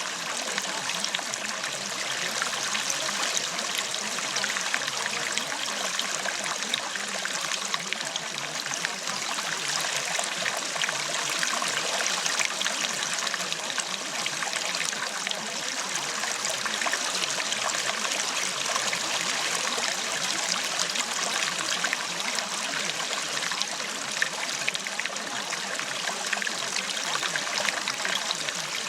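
Steady running water, like a babbling stream, with a fine patter of small splashes throughout.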